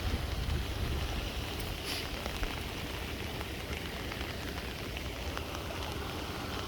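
Steady rain falling, with gusts of wind rumbling on the microphone.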